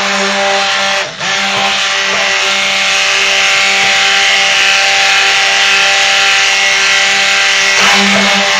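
Stick blender motor running steadily with a humming whine as it churns lye-and-oil soap batter in a large roaster pan, emulsifying it toward a creamy trace. The motor cuts out for a moment about a second in, then runs on.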